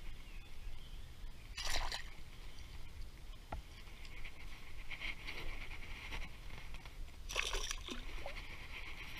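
Water splashing and sloshing around a hooked largemouth bass being landed by hand, with two sharper splashes about two seconds in and about seven and a half seconds in.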